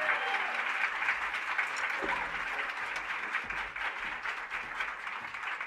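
Theatre audience applauding after a live jazz number, the clapping slowly dying away.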